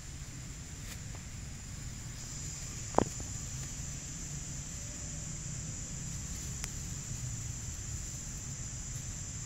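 Steady high-pitched insect drone over a low outdoor rumble, with a single sharp click about three seconds in.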